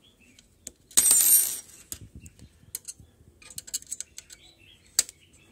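Long hex key clicking and scraping in a socket-head screw as the screw is turned by hand, tightening a T-slot nut against an aluminium extrusion. There is a loud metallic scraping rattle about a second in, light clicks after it, and a sharp click near the end.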